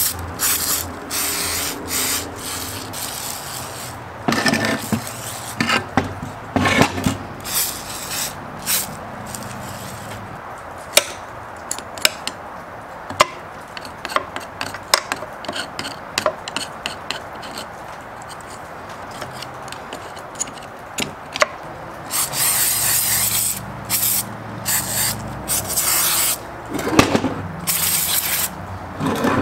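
Repeated hissing spray bursts, most of them short, with a few longer sprays of a second or more near the end, and rubbing, scraping and scattered sharp clicks between them, typical of hand-cleaning an old chainsaw's parts.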